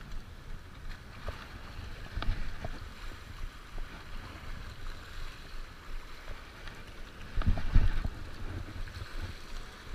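Wind buffeting the microphone over small waves washing against jetty rocks, with a louder low gust of rumble about seven and a half seconds in.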